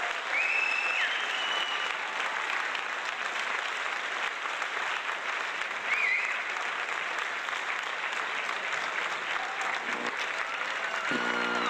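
Crowd applauding steadily, with a couple of short high whistles, the first about a second in and another about six seconds in.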